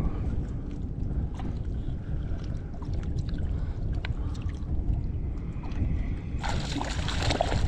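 Wind buffeting the microphone in a steady low rumble, with small splashes and water sounds; near the end, about a second of louder splashing.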